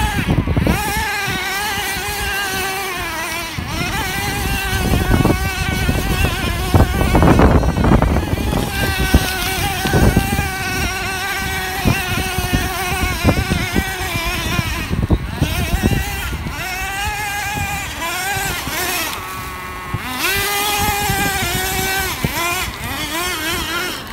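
Nitro RC truggy's small glow-fuel engine running at high revs while the truck is driven, its high-pitched note rising and falling again and again as the throttle is worked.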